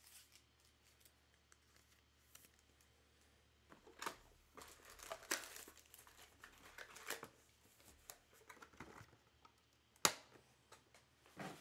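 Trading card packaging being torn open and crinkled in spells of faint rustling, with a single sharp click a little after ten seconds in.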